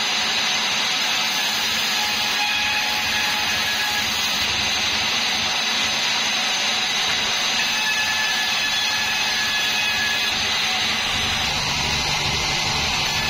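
36-inch bandsaw mill sawing through a bayur log, the blade running steadily in the cut. A lower hum comes in near the end.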